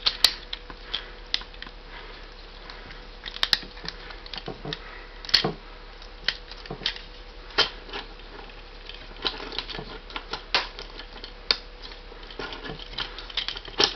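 Plastic parts of a Transformers Cybertron Cannonball action figure clicking and knocking as they are handled and fitted together, in irregular clicks a second or so apart.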